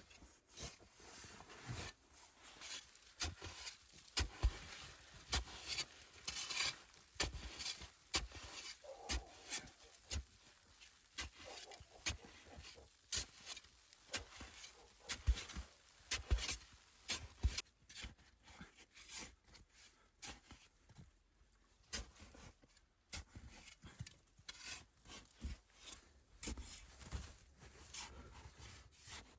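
Irregular scraping, rubbing and crunching with many short knocks, the sound of hand work in snow while digging out a shelter.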